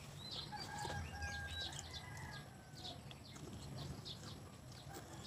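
Chickens clucking and chirping faintly in the background, many short high calls scattered throughout over a low steady rumble.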